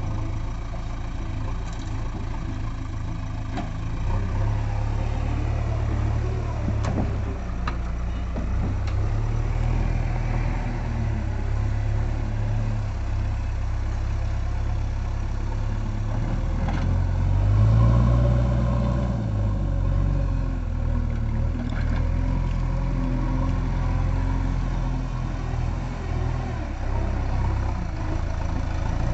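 JCB 3DX backhoe loader's four-cylinder diesel engine running under load as the front loader bucket is worked, its note rising and falling. The engine swells loudest about two-thirds of the way through.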